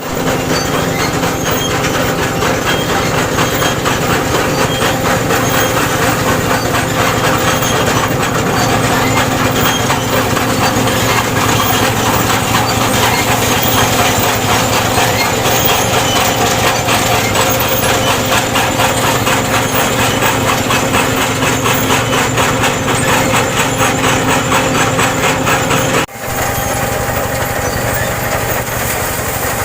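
Combine harvester running steadily while harvesting rice, its engine and machinery making a loud, constant din with a steady hum of several tones. A brief dropout about 26 seconds in.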